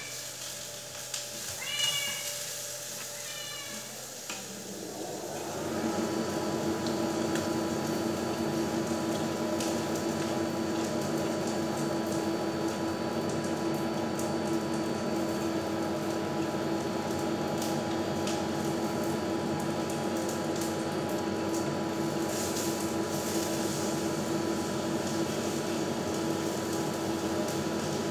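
A cat meows three times in quick succession. About five seconds in, a steady mechanical hum with a constant tone starts and runs on evenly.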